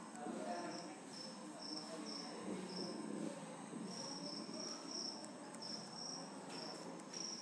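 Faint, high-pitched insect chirping, a cricket-like trill repeating about twice a second, over low background room noise.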